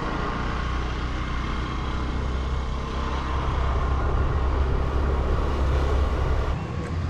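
Vehicle driving along a town street with wind on the microphone: a steady low rumble under a rushing hiss, the rumble dropping away about six and a half seconds in.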